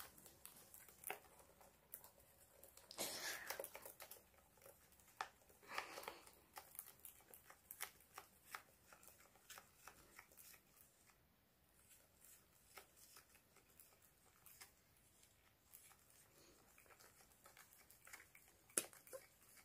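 Wooden chopsticks stirring and scraping inside a metal ladle of dalgona, melted sugar foamed up with baking soda. The sound is faint, irregular light clicks and scrapes, a little louder about 3 and 6 seconds in.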